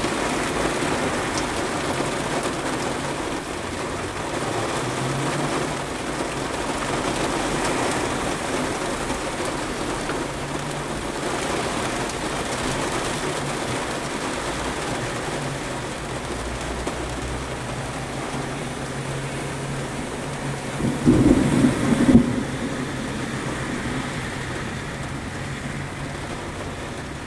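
Steady rain hissing and pattering on a car's roof and windshield, heard from inside the car. Near the end a short, louder low rumble comes in two pulses.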